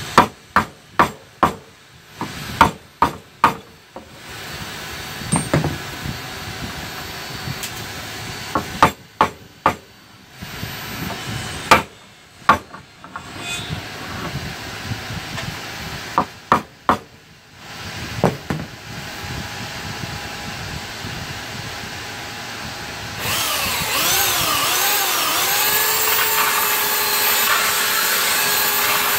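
Claw hammer knocking on a wooden boat frame and its plywood gusset in quick groups of blows. About 23 s in, a belt sander starts with a wavering whine and settles into a steady run.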